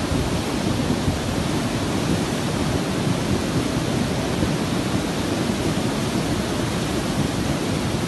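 A river in full flood rushing past, a steady, even noise of churning water with no distinct events.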